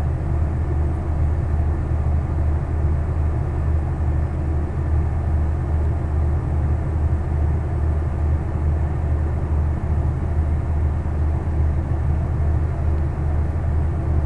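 Steady low rumble of background noise, even in level, with no distinct clicks or events.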